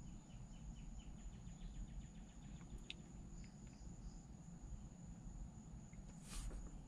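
Faint insects: a steady high-pitched drone and, during the first few seconds, a quick even run of soft chirps, with one small click about three seconds in.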